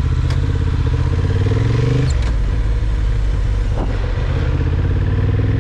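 Honda CB750 Hornet's parallel-twin engine pulling away from walking pace and accelerating, its pitch rising, dropping at a gear change about two seconds in, then rising again, with wind rush over the microphone.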